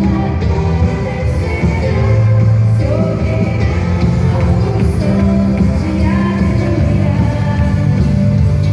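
A worship pop-rock song with a singing voice over a steady bass.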